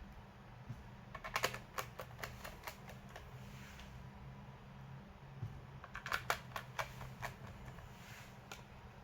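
Keys being typed on a laptop keyboard in two short runs of quick clicks, over a steady low hum.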